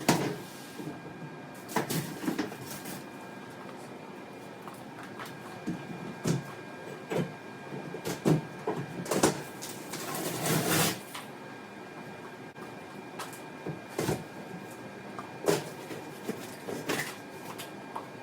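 Hand demolition work along the base of a wall: scattered knocks and clunks of tools and debris, with a longer scrape or tear lasting about a second around ten seconds in.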